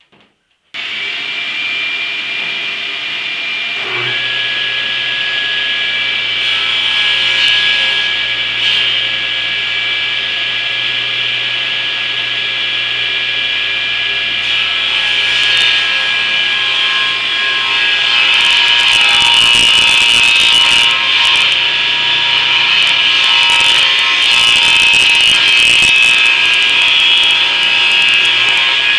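Table saw starting up about a second in and running steadily while it rips a 2x3 stud lengthwise into thin strips. The blade's cutting noise is loudest and harshest in the second half.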